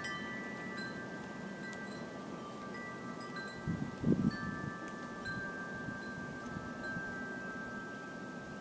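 Wind chimes ringing, several metal tones at fixed pitches sounding one after another and ringing on over each other. A brief low thud about four seconds in.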